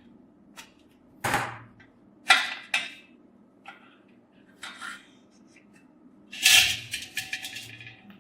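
Hard metal knocks, clinks and short scrapes from parts of a rusty old oil stove being handled: several separate strokes about a second apart, then a denser clattering run of strokes near the end.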